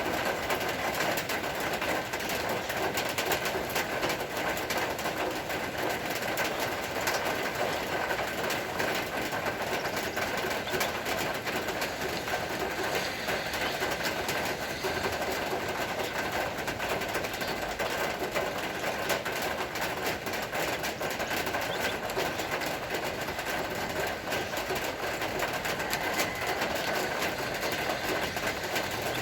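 Steady rain falling: an even hiss with many close drop hits, holding level throughout.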